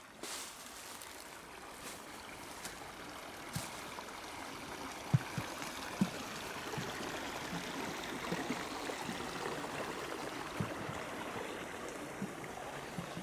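A stream of water flowing steadily, with a few short, soft knocks scattered through it.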